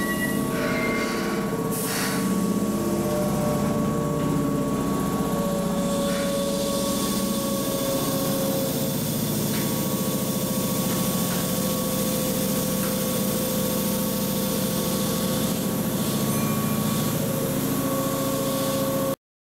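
Keihan 6000-series electric train standing at the platform with its onboard equipment running: a steady hum with a constant whine on top, and a short hiss about two seconds in. The sound cuts off suddenly near the end.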